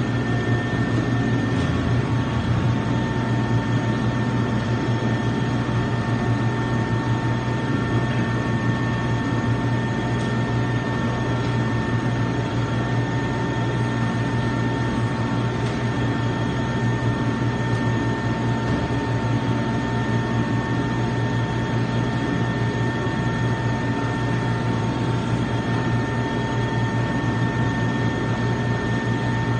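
Alimat 160 industrial meat grinder running steadily under power: a constant machine hum with a steady high whine over it.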